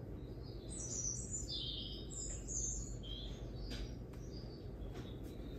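A small bird twittering: a rapid string of short, high chirps lasting about four seconds, followed by a few faint clicks near the end.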